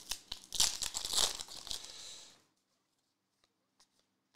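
A trading-card pack wrapper torn open and crinkled by hand, with sharp crackles, from about half a second in until a little past two seconds.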